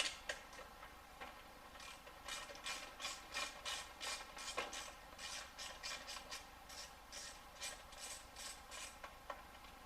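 Ratchet wrench clicking in quick strokes, about three a second, as it backs out a radiator shroud bolt on a dirt bike.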